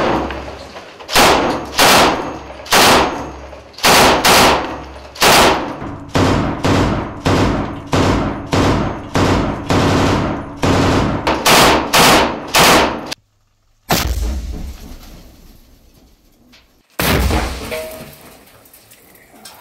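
Mounted twin-barrel machine gun firing from inside a concrete room, a steady run of shots about one to two a second, each with a ringing echo. Near the end, after a brief gap, come two more loud reports a few seconds apart with long echoing tails.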